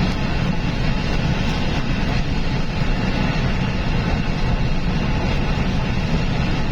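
Steady engine and road rumble of a truck driving on the highway, heard from inside the cab.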